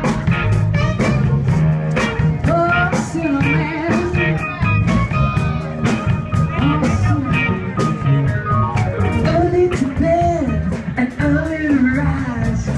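Live soul and rhythm-and-blues band playing: a male lead vocal sung over electric guitar, bass and drums keeping a steady beat.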